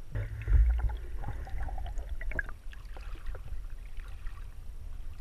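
Water sloshing and splashing around a GoPro camera held at the river's surface: a low rumble, loudest about half a second in, with scattered small knocks and clicks.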